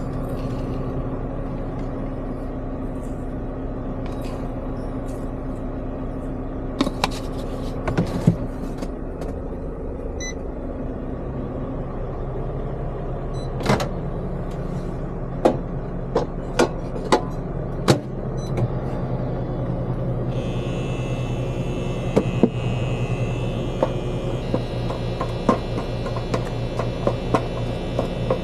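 Microwave oven humming as it runs, with a few short beeps about ten seconds in. After that a lower steady hum, with clicks, knocks and clinks of the microwave door, dishes and a spoon against a pan.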